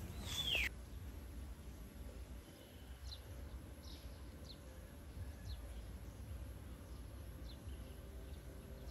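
Short, high, falling bird chirps every second or so over a low outdoor rumble. A single louder falling squeal cuts off abruptly under a second in.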